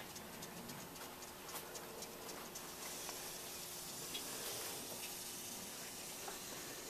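Faint room noise: a steady hiss and a low hum, with scattered soft ticks.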